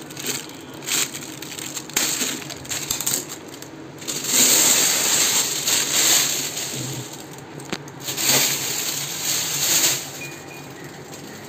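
Foil and plastic wrapping crinkling and rustling as it is cut with scissors and pulled off a takeaway food pot. The loudest stretches come midway and again near the end.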